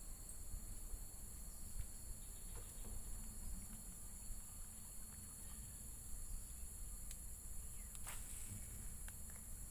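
A steady high insect chorus of crickets over a low rumble, with a few faint clicks and one short, louder scratchy noise about eight seconds in.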